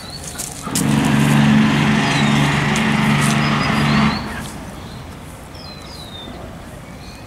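A small engine running at a steady speed for about three seconds, starting and stopping abruptly, with short bird chirps.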